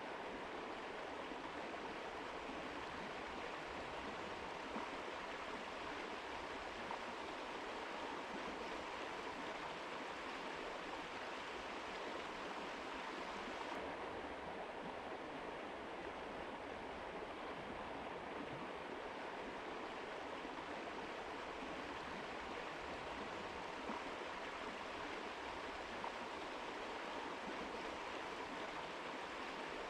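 Mountain river flowing: a steady, even sound of running water.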